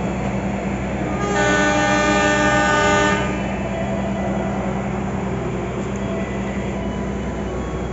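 A train horn sounds once, a steady blast lasting about two seconds that starts a little over a second in. It is heard over the constant low hum of a diesel train engine running at the station.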